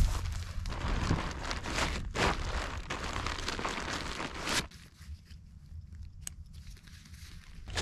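Nylon tent fabric rustling and crinkling as a tent is folded, rolled up and pressed into its stuff sack. A little over halfway through the rustling stops abruptly, leaving a few faint clicks over a low rumble.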